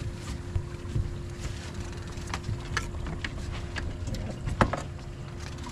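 Wind on the microphone and water moving around a small boat, over a steady low hum, with a few short sharp knocks or splashes. The loudest comes just under five seconds in.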